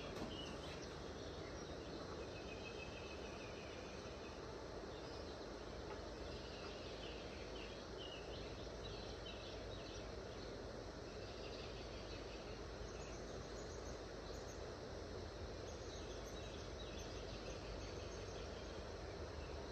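Steady outdoor background noise with birds chirping on and off.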